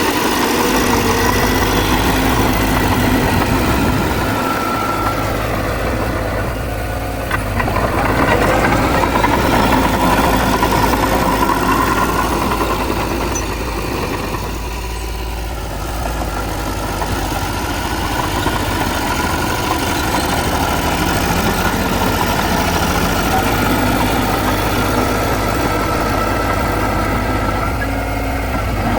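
Diesel engines of heavy earthmoving machines, a bulldozer and dump trucks, running steadily, with the engine note easing off and coming back up twice.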